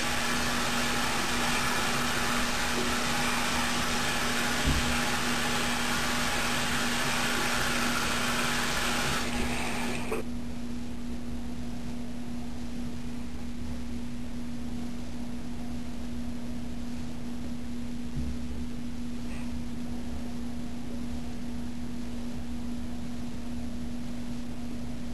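A bathroom sink faucet runs water into the basin and is shut off about ten seconds in. A steady low hum carries on underneath throughout.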